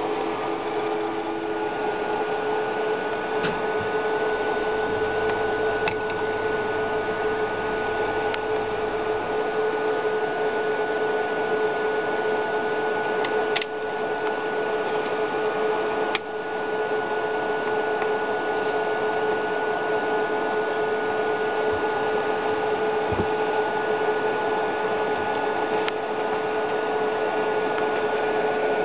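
An audio-frequency-driven heater coil humming with a steady, unchanging tone over an even hiss, with a few faint clicks.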